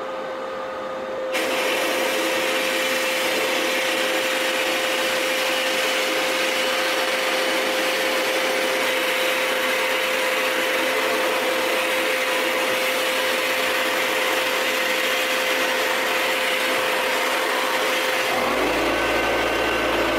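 Abrasive blast cabinet in use: compressed air and media hissing steadily from the blast gun onto a steel parking brake cable, starting about a second in. Under it runs the steady whine of a 4¼ hp Craftsman shop vac pulling dust from the cabinet, and a deeper hum joins near the end.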